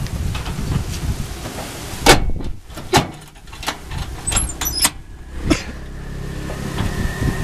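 Metal knocks and clanks from the hand tractor shifting against the steel rack on the tricycle's cargo bed. The loudest is about two seconds in, and several more follow. About halfway through, a steady low hum sets in.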